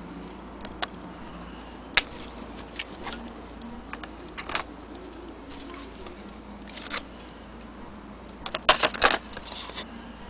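Irregular clicks and light knocks from handling a wooden mantel clock case and its brass movement parts, with a quick cluster of clatters near the end.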